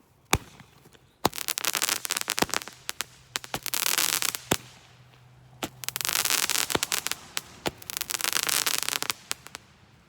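Kaleidoscope ground-fountain firework crackling: a single sharp pop just after the start, then two long runs of dense crackling studded with sharp cracks, which die away shortly before the end.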